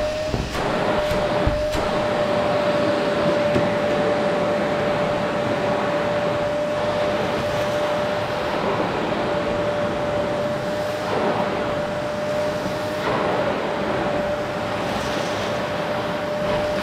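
Qilive vacuum cleaner running steadily: a rush of air with a constant high motor whine, and a few light knocks of the nozzle against the sofa.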